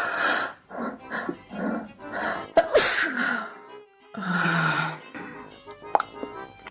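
A person sneezing, with a few sharp bursts over background music.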